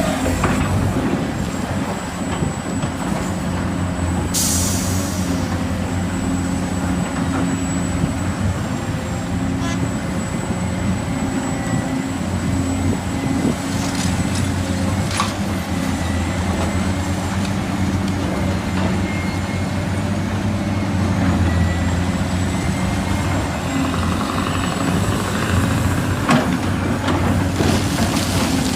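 Heavy diesel truck or machinery engine running steadily, with a short hiss of air, like an air brake, about four seconds in.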